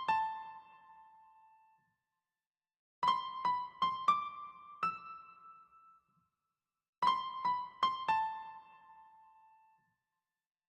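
Background music: a short phrase of four or five high keyboard notes, repeated about every four seconds. Each phrase fades out into a brief silence.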